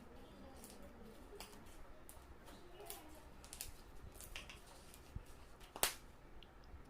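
Faint handling sounds from slime being handled: scattered soft clicks and light squelches, with one sharper click about six seconds in.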